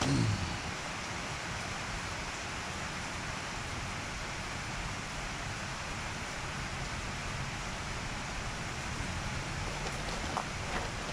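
Steady rain falling, an even hiss throughout, with a short low thump with a falling pitch right at the start.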